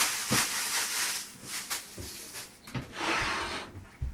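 Rustling with a few light clicks and knocks as a PC case is handled.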